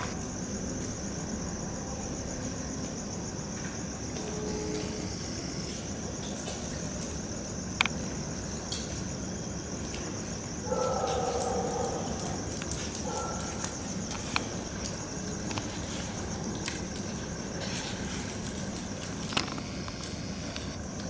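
Crickets or other night insects trilling steadily. A short pitched whine comes about eleven seconds in and again briefly near thirteen, and a few sharp clicks fall in between.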